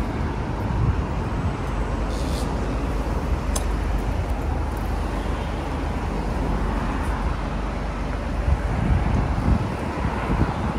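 Steady street traffic noise from passing cars on a busy city road.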